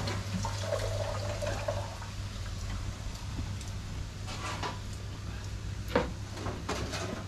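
Hot smoker pan of wood chips and charcoal hissing steadily as it smokes, with a few sharp knocks, the loudest about six seconds in.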